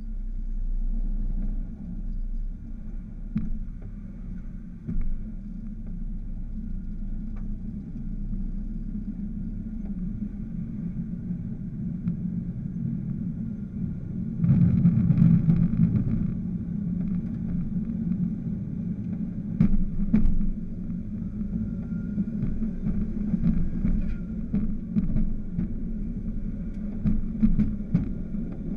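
Railroad motorcar (speeder) running along the track: a steady small-engine drone with the clatter of steel wheels on rail, clicks and knocks at the rail joints. About halfway through it turns louder and rumblier for a couple of seconds as the car rolls over a paved road crossing.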